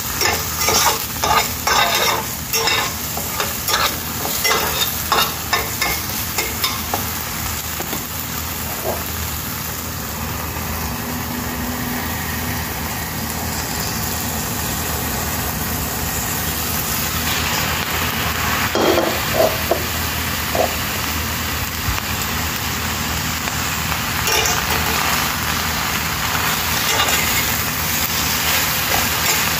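Chopped spring onions, red chillies and garlic frying in oil in a steel pan, with a spatula scraping and stirring in quick strokes over the first several seconds, then settling into a steadier sizzle.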